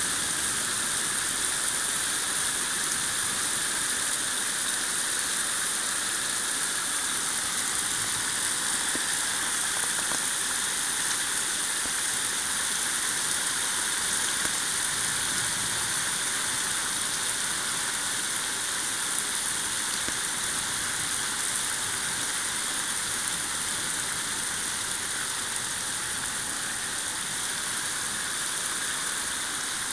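Thunderstorm rain falling steadily, a dense, even hiss that eases slightly near the end.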